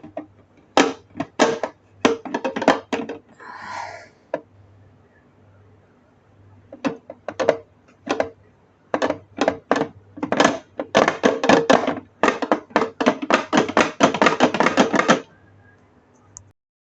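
Hard plastic juicer parts handled and fitted together: scattered clicks and knocks, then a fast run of clicking from about ten seconds in that stops suddenly near the end.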